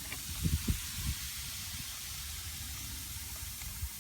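Coca-Cola fizzing and hissing as it reacts on a corroded car battery terminal, a steady hiss, with a few low bumps in the first second.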